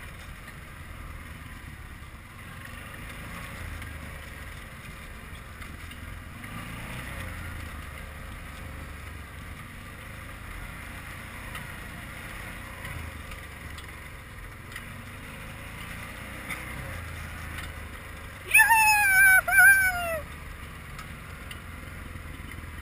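Quad bike (ATV) engine running steadily while riding over a snowy track. About eighteen seconds in, a loud high-pitched cry comes in three quick falling swoops lasting about two seconds.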